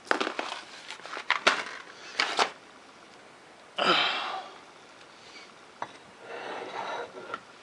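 Small metal clicks and knocks of bolts and parts being handled, several in quick succession at first, with a short hissing noise about four seconds in.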